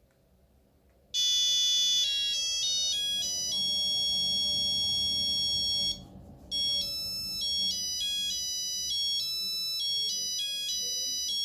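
Nokia 8210 mobile phone playing a monophonic ringtone: a melody of one note at a time, some held and some quick steps, starting about a second in, with a short break about halfway through.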